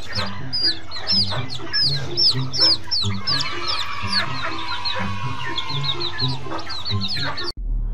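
A flock of young chickens peeping and clucking: a rapid, overlapping run of short, high, falling peeps, several a second, with music underneath. It cuts off suddenly near the end.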